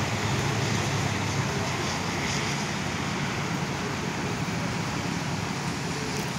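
Steady rumble of idling vehicle engines, with an even hiss over it.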